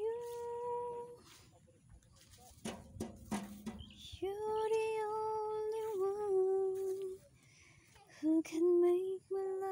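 A high voice singing or humming a slow tune in long held notes, the melody stepping down in pitch over the second half.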